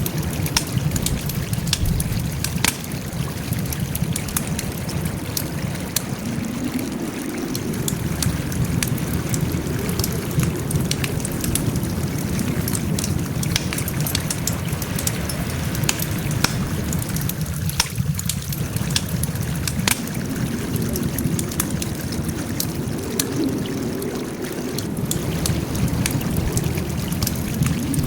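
Wood fire crackling: frequent irregular sharp pops and snaps over a steady low rumble of burning.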